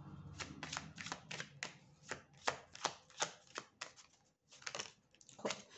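A deck of tarot cards being shuffled by hand, overhand, giving a run of quick, irregular card slaps about three or four a second, with a brief pause about four seconds in.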